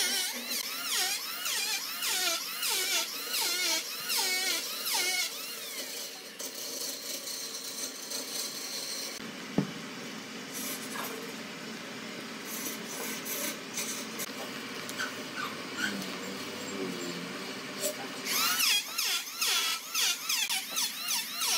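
Electric hand planer shaving end grain on a log top, its whine dipping and rising in pitch over and over as it is pushed across the wood. It stops after about five seconds, leaving a quieter stretch with a single knock, then starts planing again a few seconds before the end.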